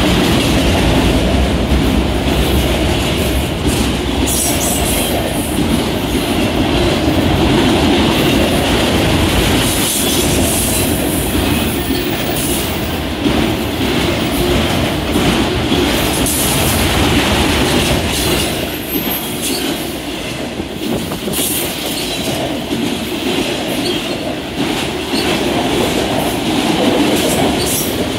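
A freight train of autorack cars rolling past close by: a steady heavy rumble of steel wheels on rail, with scattered clicks and knocks.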